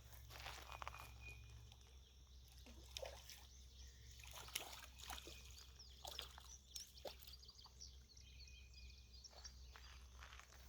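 Near silence: faint riverside ambience with scattered soft taps and clicks and a few faint high bird chirps.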